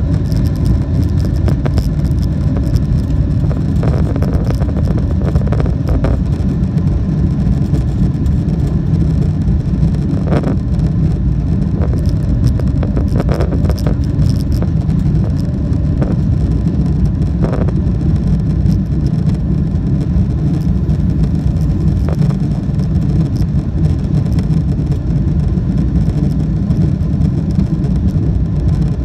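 A jet airliner's engines and airflow heard from inside the cabin during takeoff: a loud, steady low rumble, with a few faint rattles now and then.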